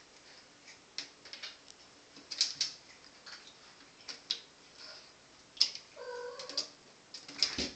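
Bottle caps clicking and skittering on the bathtub floor as kittens bat them about, in scattered sharp taps. About six seconds in, a kitten gives one short meow.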